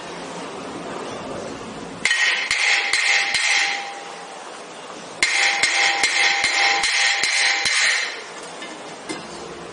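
Hammer blows on the brake rotor of a 2016 Toyota Sienna, knocking it off the front hub. There are two flurries of rapid strikes, one about two seconds in and a longer one about five seconds in, each with a steady ringing tone.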